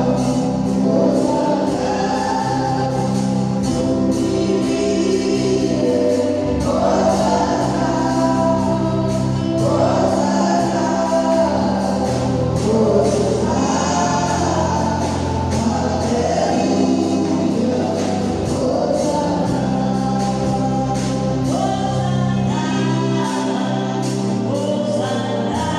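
A choir singing a gospel song over a steady instrumental accompaniment with sustained bass notes and a regular beat.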